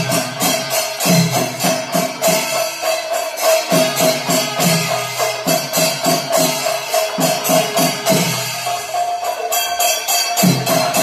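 Kerala temple procession music: cymbals struck in a quick, even rhythm over regular drum strokes, with one held note sounding throughout.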